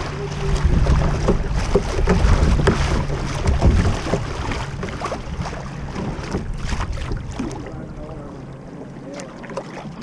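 Rushing river water and wind rumble on the kayak's bow-mounted camera microphone as the kayak runs a choppy riffle, with scattered small splashes. The rush and rumble ease off about three-quarters of the way through as the water smooths out.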